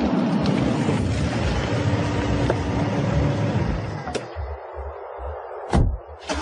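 Car sound effect of a car driving up fast and pulling to a stop, its engine and tyre noise swelling and then dropping away about four seconds in. A loud sharp knock follows near the end, then two more just after.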